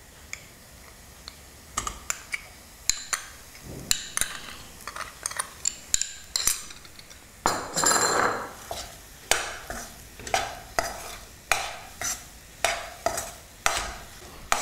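Steel spoon scraping and knocking against a kadhai as chana dal and mawa are stirred and fried in ghee. A few scattered clicks come first, then steady strokes about twice a second from about halfway through.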